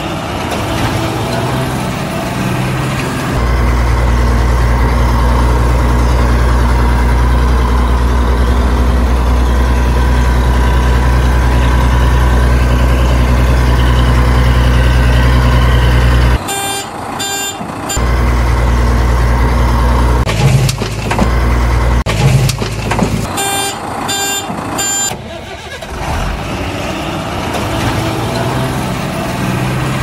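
Heavy truck engine sound running at a steady idle. Twice in the second half it gives way to a short run of reversing beeps.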